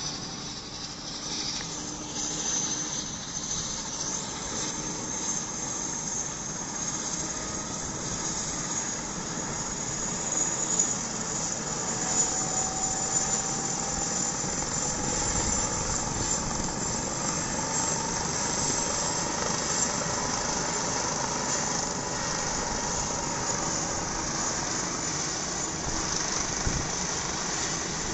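Air-ambulance helicopter with a ducted Fenestron tail rotor running on a rooftop helipad: constant rotor and turbine noise with a high whine and a second whine both slowly rising in pitch and the sound growing louder, as the engines power up for lift-off.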